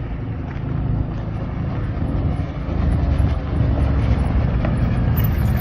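Side-by-side off-road vehicle's engine running as it drives, getting louder about three seconds in.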